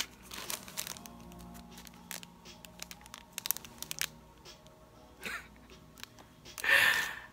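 Clear plastic packaging of a hard enamel lapel pin crinkling and clicking as it is handled and shaken, with a louder noisy burst near the end. Faint music plays underneath.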